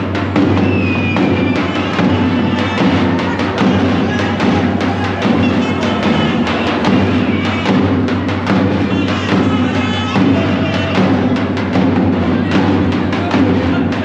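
Loud music with a steady drum beat.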